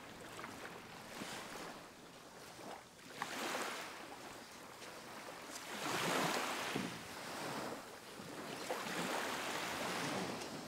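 Small ocean waves breaking and washing up onto a sandy beach, the surf swelling and fading in three or four surges.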